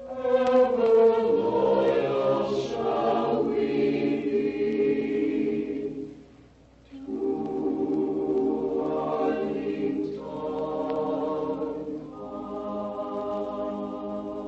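A choir singing. It breaks off briefly about six seconds in, then resumes and ends on a long held chord.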